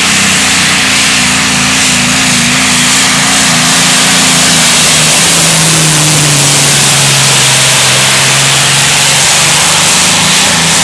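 Modified pulling tractor's engine running loud at full power while dragging the weight sled down the track. Its pitch steps down about halfway through and sags slightly toward the end as the tractor works against the sled's load.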